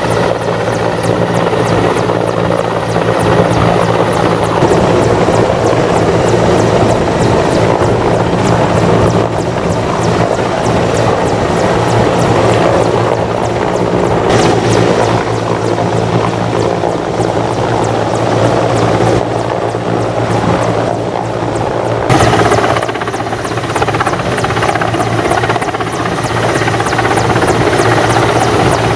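Mil Mi-17 military helicopter flying low, its rotor and turbine noise loud and steady with a constant low drone.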